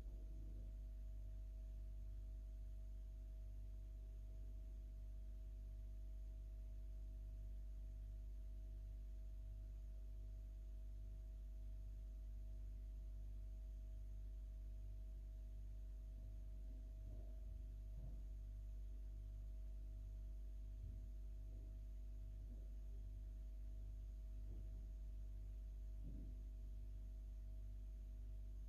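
Steady low electrical hum with a faint, unchanging higher tone over it, in a quiet room; a few faint soft rustles near the middle and end.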